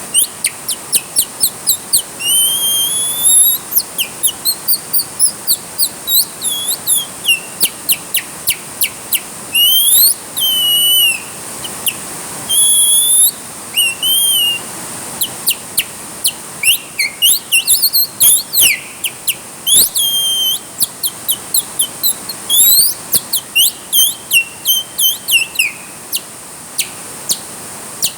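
A songbird singing steadily: a fast, varied string of short whistled notes and sweeping phrases, some repeated in quick series, with a few longer held notes. A faint steady hiss lies underneath.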